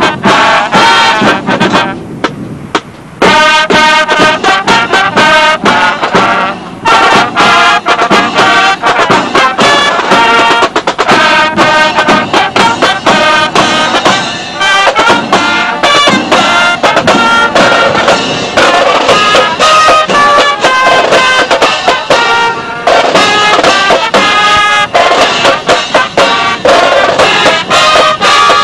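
Marching band playing, brass instruments such as trumpets carrying the tune over drums, loud and continuous apart from a short break about two seconds in.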